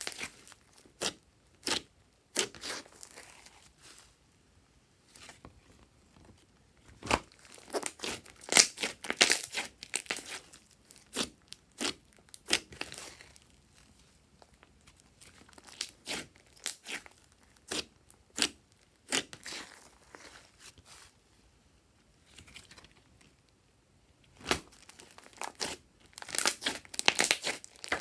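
Glossy slime being squeezed, stretched and pressed by hand, making sticky clicking and crackling pops. The pops come in clusters separated by short pauses.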